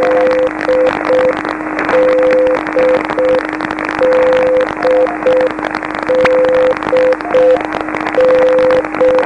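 Morse (CW) beacons on 7039 kHz heard through a shortwave receiver: one beacon keys the same short group of tones, a long one and two shorter, about every two seconds. Under it runs a steady lower tone, with a fainter higher keyed signal now and then, all over hissing band noise.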